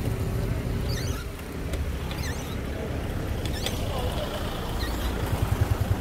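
Wind rumbling on the microphone of a camera on a moving bicycle, with road traffic. Short high chirps sound about every second or so.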